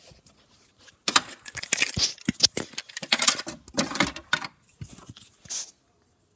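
Small plastic toys being handled and knocked together close to the microphone: a rapid run of clicks, clatters and rustles that starts about a second in and stops shortly before the end.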